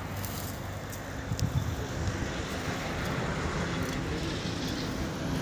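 Steady outdoor background noise with a low rumble, and a few light clicks about a second and a half in.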